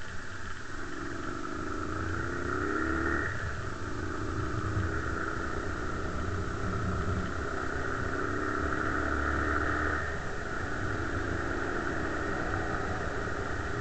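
Bashan 250 quad bike's engine under way and accelerating, its pitch rising steadily. It drops sharply at a gear change about three seconds in and again about ten seconds in, then climbs once more.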